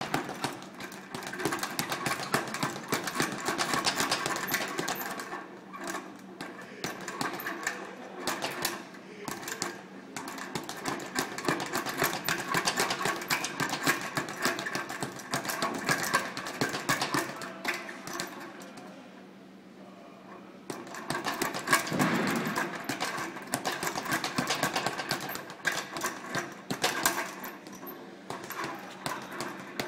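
Speed bag being punched in a fast, continuous rhythm, the bag rattling against its wooden rebound board. It eases off briefly about two-thirds of the way through, then picks up again.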